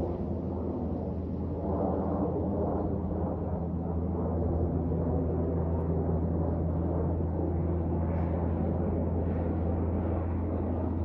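An airplane flying overhead: a steady, loud low drone and rumble that swells slightly about two seconds in.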